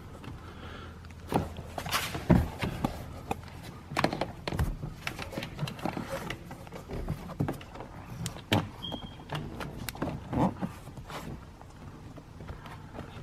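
Hands working a wire under car carpet and interior trim: irregular rustling, knocks and clicks, with one brief high squeak about nine seconds in.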